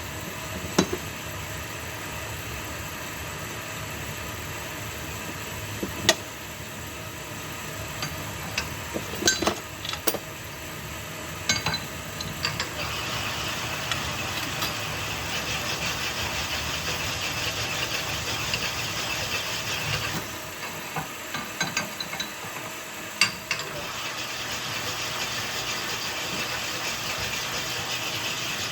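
Connecting-rod hone running steadily while it rough-sizes the big-end bores of Ford 302 rods, its stone cutting with a hiss that comes and goes as rods are worked. Sharp metallic clinks and taps come every few seconds as rods are handled.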